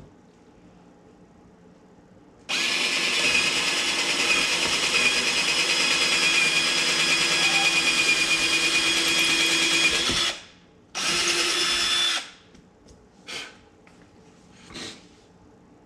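Black and Decker 20V cordless drill boring the screw holes for cabinet knobs: one long, steady run of about eight seconds, then a short second run. Two faint knocks follow.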